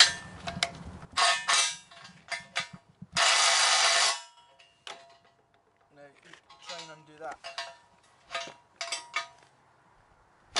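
DeWalt DCF813 10.8 V compact impact wrench hammering a nut tight on a bolt through a steel beam, in short bursts, the longest about a second, about three seconds in. Later come a few separate metallic clinks of a hand spanner on the nut and beam.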